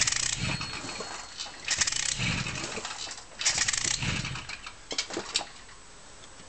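Zündapp Typ 442-17 moped's 50 cc two-stroke engine being turned over by pedalling, in three strokes about every second and three-quarters, without catching; a few sharp clicks about five seconds in as the pedalling stops. The engine will not start, a fault the owner has had since filling it with new fuel.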